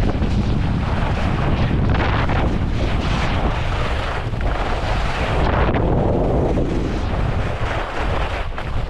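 Wind buffeting a GoPro's microphone with a heavy low rumble, while skis hiss and scrape over the snow, swelling and fading with each turn.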